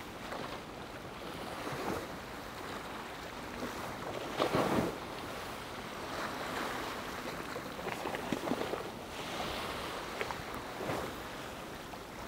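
Shoreline ambience: wind on the microphone and small waves washing against a seawall, an even rushing sound with a brief louder surge about four and a half seconds in.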